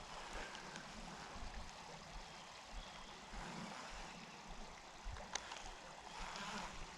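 Faint, steady rush of flowing creek water, with a single sharp click a little past five seconds in.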